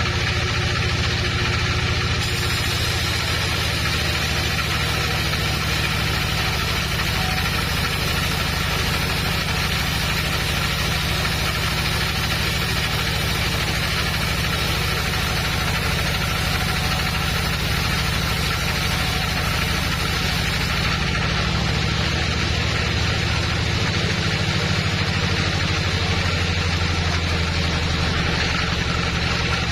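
Sawmill machinery running with a steady, unchanging motor hum.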